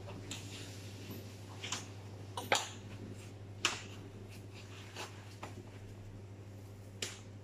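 Light handling sounds of a plastic scraper and a cloth piping bag being filled with pistachio dough over a metal tray: about five short sharp clicks and taps, over a steady low hum.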